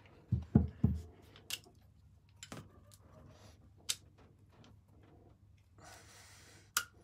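Hand tools being handled on a metal motor shaft coupling: three dull knocks about half a second in, then a few sharp metallic clicks and clinks spaced out over the next several seconds, with a brief scrape near the end.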